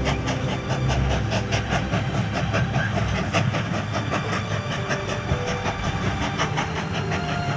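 Steam train running: a quick, even rhythmic beat with a steady hiss of steam.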